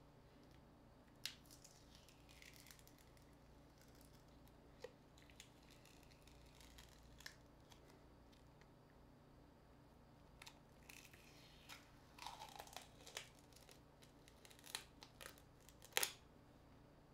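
Small clicks and scrapes of a smartphone being pried and taken apart by hand, scattered over a faint room hum. There is a busy run of them about twelve seconds in and the loudest sharp click near the end.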